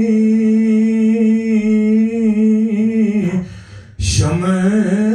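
A man's unaccompanied voice chanting a noha (lament), holding one steady long note for about three seconds. The note slides down and fades, and after a short breath a new phrase begins about four seconds in.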